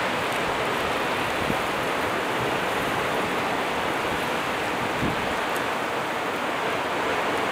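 Steady rushing outdoor background noise, with a couple of faint knocks about a second and a half in and again about five seconds in.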